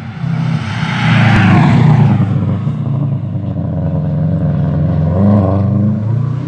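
Rally car engine at high revs coming close, its pitch climbing and dropping in steps as it shifts gears, loudest about two seconds in. A single sharp crack a little over a second in.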